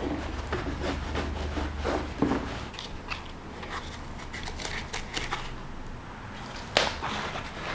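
Scattered small clicks, rustles and scrapes of objects being handled, over a steady low hum, with one sharper click near the end.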